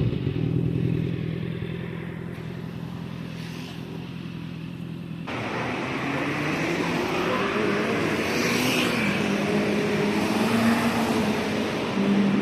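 Honda CB650R's inline-four running through an Akrapovic R3 GP full-system exhaust, settling to a steady idle. About five seconds in the sound changes abruptly to a louder, noisier mix, with the engine note wavering gently up and down.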